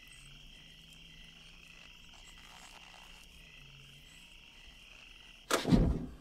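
A faint, steady night chorus of chirping frogs and insects from a film soundtrack. Near the end, a gas stove burner lights with a sudden loud whoosh.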